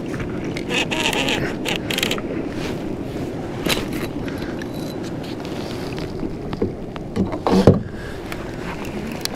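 Steady wind and water noise on a fishing kayak at sea, with scattered knocks and clicks of gear and hull handling as a hooked lingcod is brought up alongside. A short burst of voice about three quarters of the way through.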